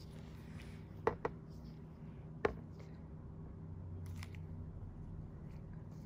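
Steady low hum with a few short, sharp clicks: two in quick succession about a second in, a louder one about two and a half seconds in, and a fainter one a little after four seconds.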